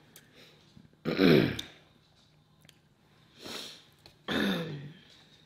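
Short wordless vocal sounds from a person: a loud throat-clearing or 'mm'-like sound with falling pitch about a second in, a softer breathy sound in the middle, and another falling vocal sound near the end.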